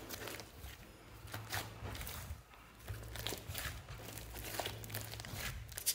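Hands kneading and squeezing a large lump of thick slime, giving irregular squishing and small crackling pops.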